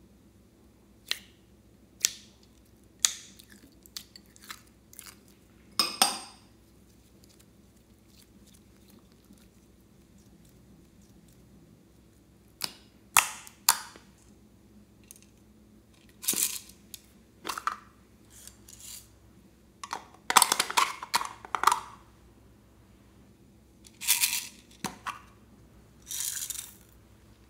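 Handling noises of hard plastic bowls and containers: a run of sharp taps and clicks about once a second early on, then after a quiet spell scattered clinks and a few longer rustling bursts.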